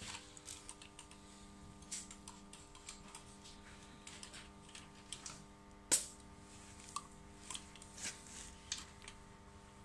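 Faint, scattered clicks and taps of hand tools being handled, with one sharper click about six seconds in, over a steady low hum of workshop room tone.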